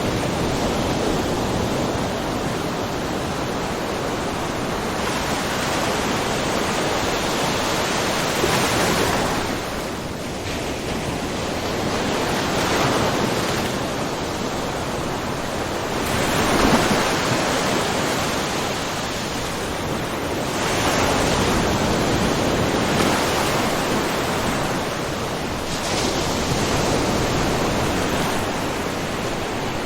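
Small ocean waves lapping and splashing on a rocky shore, a continuous wash that swells every few seconds.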